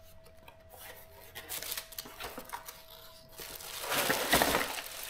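A cardboard box being opened and a plastic-wrapped handheld vacuum cleaner being slid out of it. There is light scraping and rubbing at first, then louder crinkling and rustling of the packaging about four seconds in.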